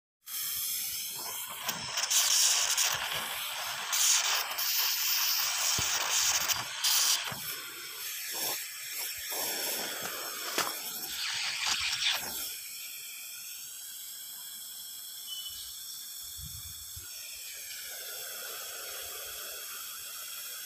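Hissing and clattering as molten battery lead is poured from a steel pot into a steel bushing set in a clay mould, with sharp metal knocks over the first twelve seconds. A quieter, steady hiss follows to the end.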